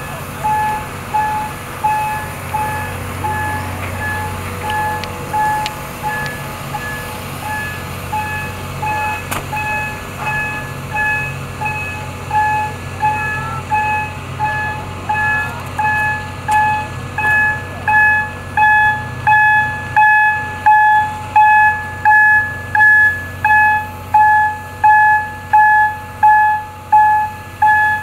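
Railway turntable's warning beeper sounding steadily as the turntable rotates, about three beeps every two seconds, growing louder in the second half. A low hum runs under the beeps in the first part.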